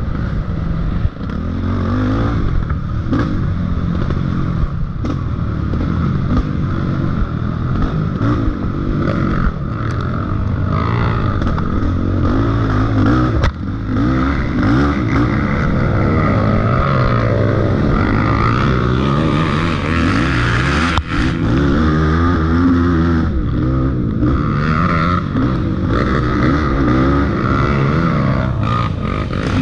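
Off-road race engine being ridden hard, its pitch rising and falling continuously as it revs up and eases off over the trail, with a few sharp knocks, one about 13 seconds in and one about 21 seconds in.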